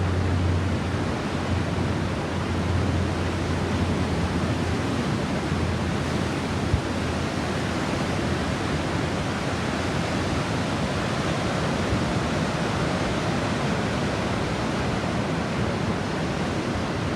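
Steady rushing wash of ocean surf breaking on the shore, with a low rumble in the first several seconds and one short knock about seven seconds in.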